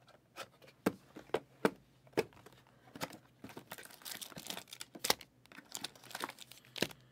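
Cardboard trading-card hobby boxes and foil card packs being handled and opened: irregular crinkling, short tearing sounds and light taps.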